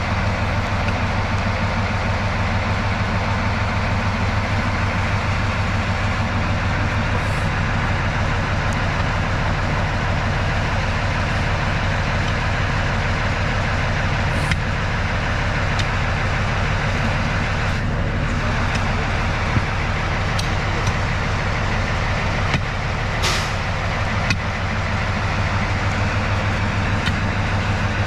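TU7A narrow-gauge diesel locomotive's engine running steadily, with a couple of short hisses past the middle.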